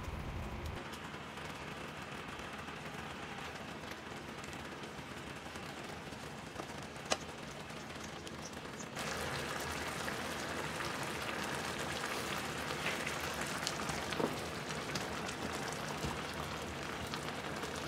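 Coconut-milk and orange sauce simmering with pieces of fish in an electric skillet: a steady fine crackling and bubbling, rather like rain on a surface, that gets louder about halfway through. A couple of sharp clicks stand out, one about 7 seconds in and another near 14 seconds.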